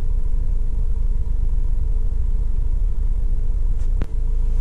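Vauxhall Vivaro's 2.5-litre diesel engine idling steadily, heard from inside the cab, with a brief click about four seconds in.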